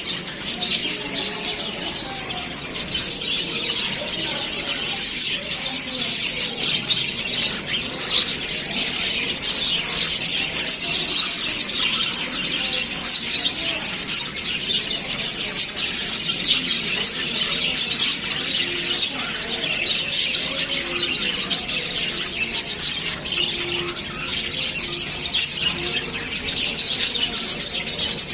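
A group of lovebirds chattering and squawking without pause, a dense, high-pitched twittering of many overlapping short calls.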